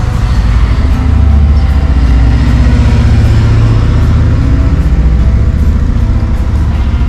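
Steady low rumble of a car driving, engine and road noise with no break.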